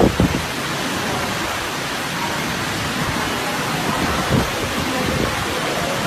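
Steady rushing noise of wind and sea water on an outdoor microphone, with a couple of soft low wind buffets.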